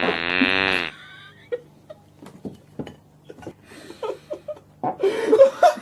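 A loud, buzzing fart just under a second long at the start, followed by scattered small clicks and, near the end, loud voices.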